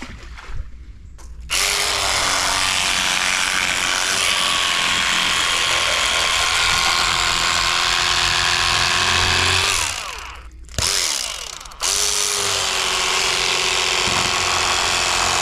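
Electric fillet knife running as it cuts a black crappie, its motor giving a steady hum. It starts about a second and a half in, winds down and stops briefly about ten seconds in, then starts again.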